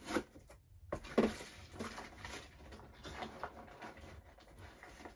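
Handling noise on a desk: a few sharp light knocks in the first second or so, then uneven rustling and small clatters.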